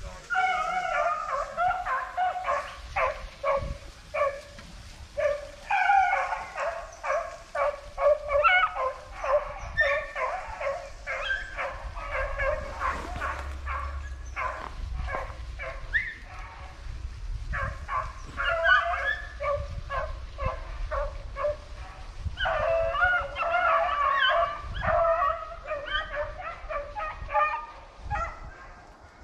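A pack of rabbit-hunting hounds baying, many voices overlapping in bursts with brief lulls: the dogs are in full cry, running a rabbit on its scent trail.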